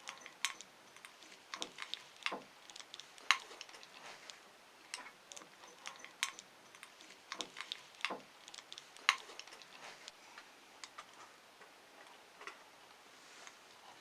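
Meat grinder working gummy candy: irregular sharp clicks and ticks, a few louder than the rest, with no steady motor hum.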